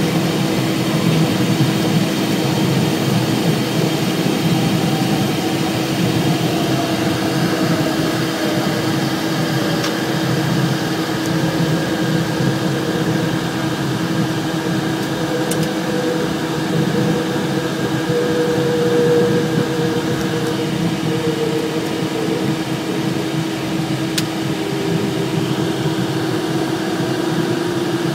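Cabin noise inside the cockpit of a Cessna Citation Excel business jet moving along the runway: a steady mechanical hum with a constant tone, and a fainter whine that slowly falls in pitch.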